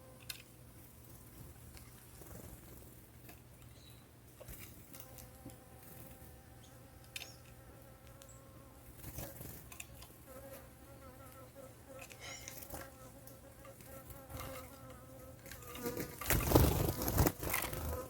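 A steady buzzing hum, with a few short high bird chirps over it, and a loud burst of rustling noise near the end.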